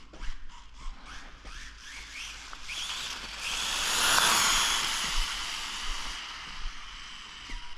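High-pitched whine of a 1/14-scale RC car's brushless motor (Rlaarlo Croboll with a Castle 6350kv motor) in a speed run. It starts with a run of short rising throttle bursts, then swells into a loud pass with tyre rush that peaks about four seconds in and fades away. The owner finds the car running slow and suspects the ESC needs tuning.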